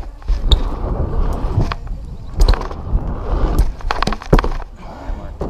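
BMX bike rolling across wooden ramps, with wind rumbling on the microphone, then a series of sharp knocks and clatters. The loudest come around the middle and about four seconds in, as the bike slams and bangs against the ramp surface while the rider bails.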